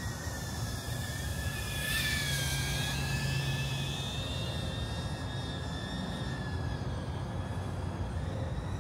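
DJI Avata FPV drone's propellers whining as it flies fast and low in sport mode, the pitch wavering as it manoeuvres. It gets louder about two seconds in as it passes closer, over a low steady rumble.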